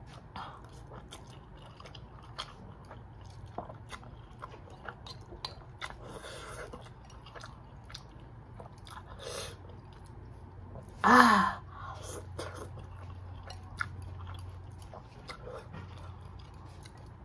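A person chewing spicy instant noodles, with many small wet mouth clicks and smacks throughout and a few short breaths. One brief loud vocal sound comes about eleven seconds in.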